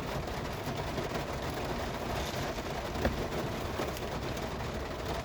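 Steady rain pattering on the roof of a van, heard from inside, with one louder tap about three seconds in.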